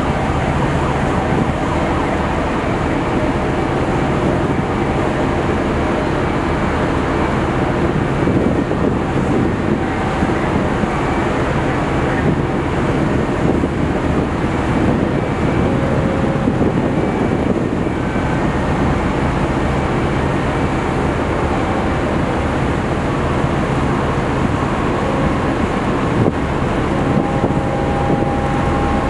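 Steady, loud machinery drone aboard a Great Lakes self-unloading freighter as its conveyor boom swings back into place, with brief high tones coming and going over it.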